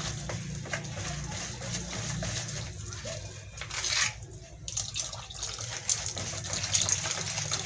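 Wire whisk scraping and clicking through thick wheat-flour batter in a plastic bowl, with water poured in from a plastic jug in the second half to loosen the batter.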